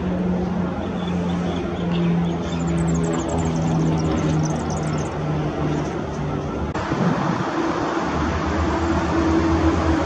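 Steady low rumble, with a few faint, high-pitched chirps of a small bird a few seconds in. The background changes abruptly about two-thirds of the way through.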